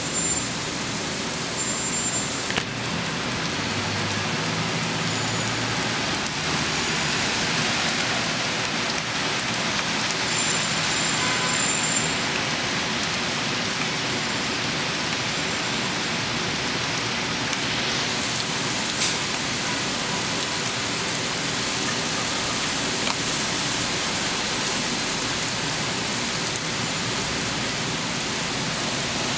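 Heavy rain pouring onto a paved street and parked cars: a dense, even hiss of splashing drops.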